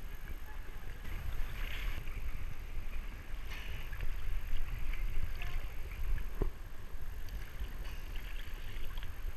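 Sea water sloshing and lapping against a camera held half-submerged at the surface, with a low rumble, a few brief splashes and a single sharp knock about six seconds in.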